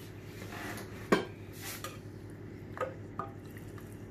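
A spoon knocking against a dish as BBQ chicken mixture is spooned out onto nachos: one sharp knock about a second in, then two lighter clinks near three seconds, the second ringing briefly.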